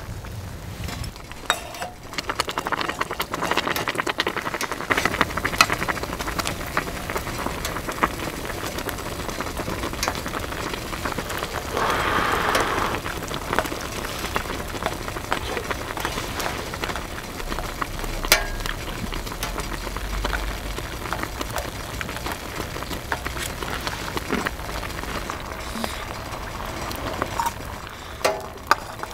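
Food frying and sizzling in a pan, with scattered small clicks and scrapes as it is stirred. The sizzle swells briefly about twelve seconds in.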